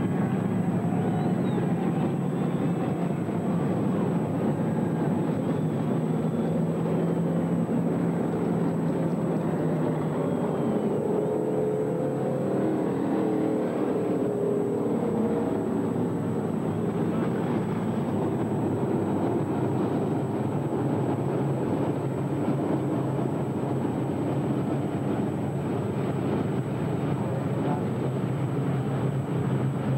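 Several dirt late model race cars' V8 engines running around a dirt oval in a steady, continuous drone.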